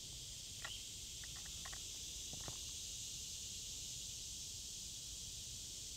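Steady, faint chorus of insects droning high in the outdoor air, with a few faint ticks about one to two seconds in.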